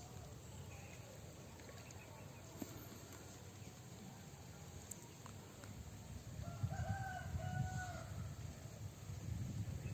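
A rooster crowing once, about six and a half seconds in, in a call with a short break in it.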